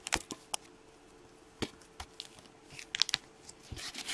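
Clear hard plastic trading-card holders clicking and tapping as they are handled, a few sharp clicks scattered through, a quick run of them about three seconds in, and a short rustle near the end.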